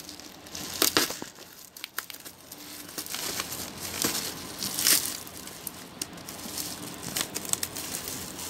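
Plastic bubble-wrap packaging crinkling and rustling as it is handled and cut open with scissors, with irregular sharp crackles, loudest about a second in and again around five seconds in.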